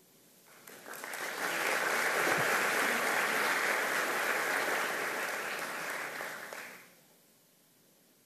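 Audience applauding: the clapping swells over the first second or so, holds steady, then dies away about seven seconds in.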